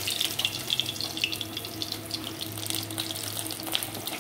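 Masala-coated crab pieces frying in hot oil in an iron kadai: a steady sizzle full of quick crackles and pops, over a low steady hum.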